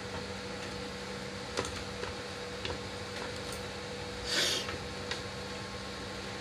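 Steady hum of a hot-air rework station's blower, with a few faint clicks of tools on the board and a short hiss about four seconds in.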